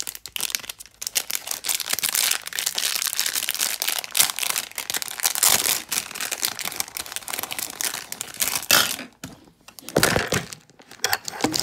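Thin clear plastic packaging bag crinkling and rustling steadily as hands work at it. About ten seconds in there is a louder jolt of handling noise as the recording phone is dropped.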